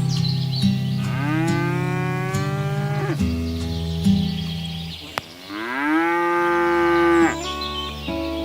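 Cattle mooing: two long moos, each sliding up in pitch and then held before breaking off.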